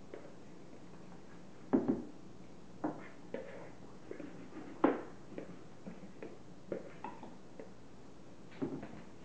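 Spoons and bowls knocking and scraping while a chocolate trifle is layered: irregular clinks and taps, the loudest about two and five seconds in.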